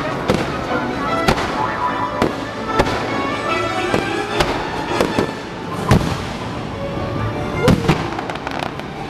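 Fireworks display: shells bursting in a rapid run of bangs and pops, with the biggest bangs a little past the middle and again near the end, while show music plays underneath.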